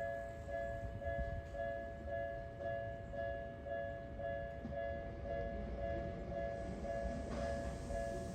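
Railway level-crossing warning bell ringing in a steady electronic two-tone pulse, about two strokes a second. An approaching train's rumble builds under it near the end.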